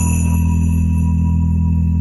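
Background music: a steady low drone with a high bell-like chime ringing over it, struck just before and slowly fading.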